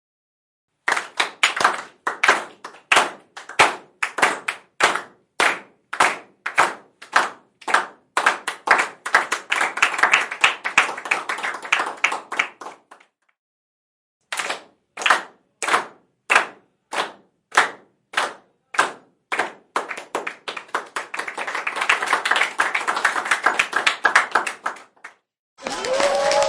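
Applause that starts as slow, distinct rhythmic clapping, about two claps a second, and builds into dense clapping before cutting off about 13 seconds in. After a short silence the same pattern repeats: rhythmic claps swelling into full applause that stops just before the end.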